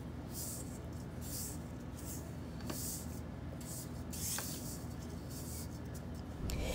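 Spatula scraping and stirring dry bath bomb powder in a stainless steel stand-mixer bowl: soft hissy swishes about once a second, with a couple of faint ticks against the bowl.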